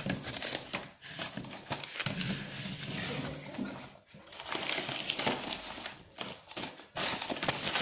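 Plastic blind bag packets rustling and crinkling as they are handled and pulled from a plastic basket, in stretches broken by short pauses.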